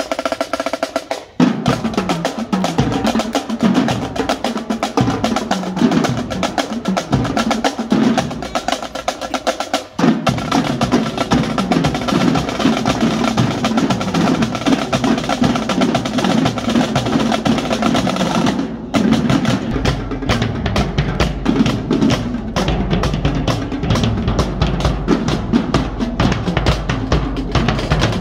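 Marching drumline of snare drums, tenor quads and bass drums playing a fast cadence with dense, rapid stick strokes. It pauses briefly about a second in and again around ten seconds in. In the last third the bass drums come through heavier.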